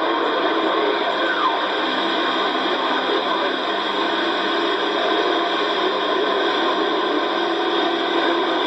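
CB radio receiver's speaker putting out a steady hiss of band noise, with a jumble of overlapping garbled signals and faint wavering whistles.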